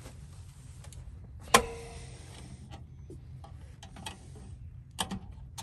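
Sheet-metal fuel-filler door of a T1N Sprinter van being worked by hand: one sharp metallic snap with a brief ring about a second and a half in, then a few lighter clicks, over a low steady rumble.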